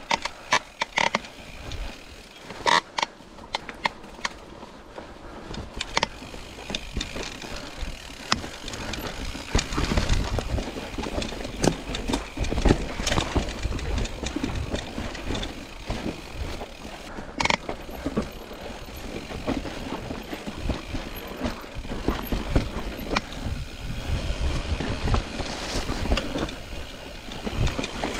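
Mountain bike ridden over rough, rocky ground: irregular clattering knocks and rattles from the bike, with a low wind rumble on the microphone that grows stronger from about ten seconds in.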